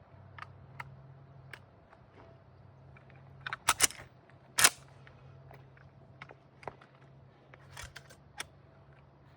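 Metallic clicks and clacks from handling a Marlin 30-30 lever-action rifle: scattered single clicks, a quick run of louder clacks about three and a half seconds in, and one sharp, louder clack about a second later.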